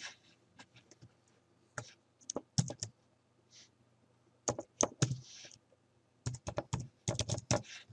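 Typing on a computer keyboard: irregular keystrokes early on, a pause, then a quick run of keys near the end.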